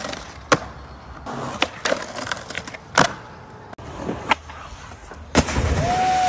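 Skateboard tricks on concrete: wheels rolling with sharp pops and landing clacks, one loud clack about halfway through. Near the end a loud splash as a skater goes into water, with a held high tone that drops away at the end.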